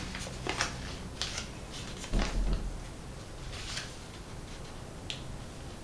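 Sheet of origami paper being folded by hand: scattered soft crinkles and rustles as the paper is bent over and aligned, with a dull low thump about two seconds in.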